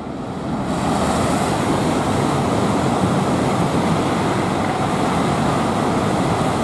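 Eurostar Class 374 high-speed train passing through the station at speed: a loud, steady rush of wheel and air noise that builds over the first second and then holds.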